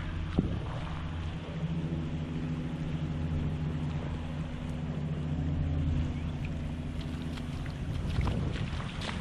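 Motorboat engine running steadily, an even low hum that eases off after about seven seconds. Small waves wash at the shoreline near the end.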